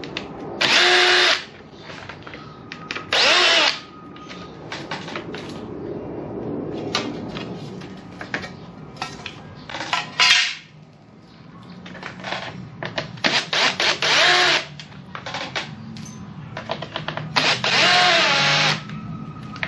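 Cordless drill-driver backing out the screws that hold a motorcycle's rear number plate and its plastic plate holder, run in about five short bursts of a second or so each with a steady motor whine. Between the bursts come clicks and rattles of screws and plastic being handled.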